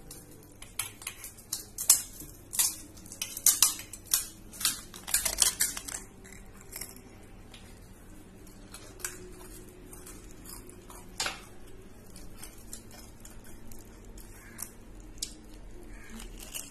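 A steel spoon clinking and tapping against stainless-steel bowls as crisp puri shells are poked open, a quick run of sharp clinks and cracks in the first six seconds, then a few scattered clinks.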